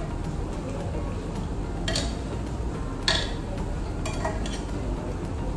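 Metal tongs clinking and scraping against a metal grill pan of meat: three sharp clinks about a second apart over a steady low background noise.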